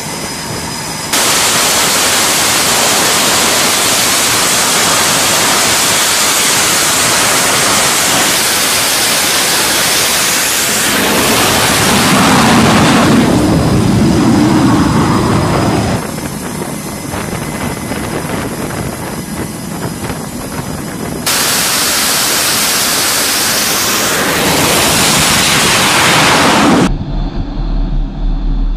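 F/A-18 jet engines running at high power on a carrier flight deck: a loud, steady rushing roar that jumps in level and colour several times, briefly deeper in the middle. Near the end it gives way to a quieter, steady low hum.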